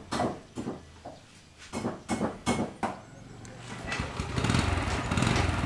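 Knife chopping on a board in a quick run of sharp knocks. From about three seconds in, a small engine comes up and grows steadily louder.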